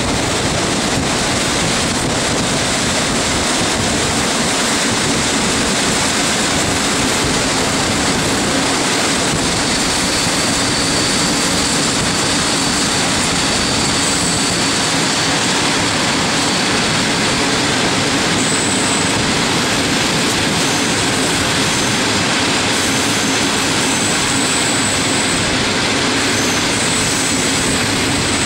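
Steady rush of wind and wheel-on-rail running noise from an electric-hauled passenger train heard at an open carriage window, with faint high-pitched squeals coming and going from about a third of the way in.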